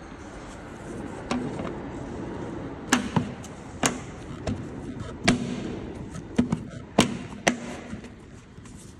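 About a dozen sharp clicks and knocks, spread irregularly, as the plastic boot-lid handle trim of a BMW F10 is pushed and clipped back into place.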